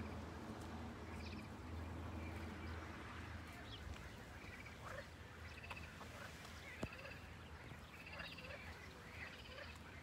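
A faint chorus of frogs croaking from the lakeside reeds: many short pulsed calls that overlap and repeat throughout. A low rumble runs under the first few seconds, and a single sharp click comes just before seven seconds.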